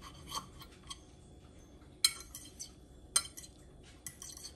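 Metal fork clinking and scraping on a plate while cutting through an omelette. There are a few light clinks and two sharp ones about two and three seconds in.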